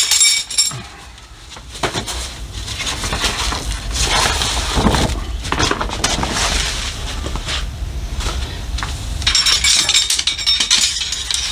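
Folding camp cot's fabric bed rustling and flapping as it is pulled out and shaken flat. Its aluminium poles clink briefly at the start and again about nine and a half seconds in.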